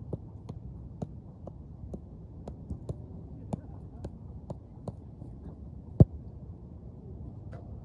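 Football being touched along with light taps about two a second, then kicked hard in one loud strike about six seconds in, over a steady low outdoor rumble.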